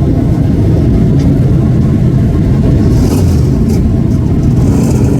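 Superstock speedway cars' V8 engines running hard together, a loud continuous rumble of several engines at once.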